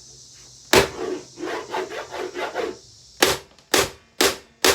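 Hammer blows on a Hoover vacuum cleaner's housing that fail to dent it: one hard strike, a stretch of scraping and rattling, then four strikes about half a second apart near the end.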